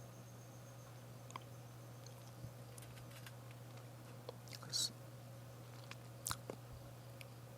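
Faint scattered clicks and a short rustle from handling, with a steady low hum.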